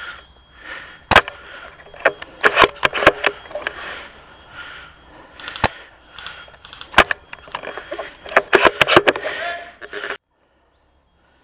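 Airsoft guns firing in an exchange of fire: sharp single shots and quick bursts of several shots, coming in clusters. The sound cuts off abruptly about ten seconds in.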